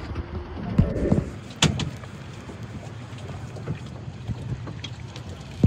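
Speedboat's Mercury outboard motor idling with a steady low hum, with a few short knocks in the first couple of seconds.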